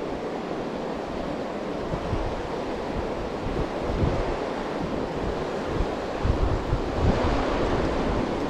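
Fast river water rushing over rocks, a steady wash of noise, with wind buffeting the microphone in uneven low gusts.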